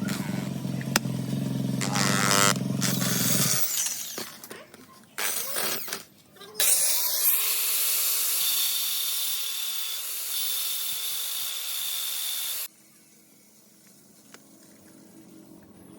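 Workshop power-tool sounds: a motor runs with a steady low hum for about three and a half seconds, a few knocks and clatters follow, then a loud steady hiss with a thin high whistle lasts about six seconds and stops suddenly, and a fainter motor hum comes in near the end.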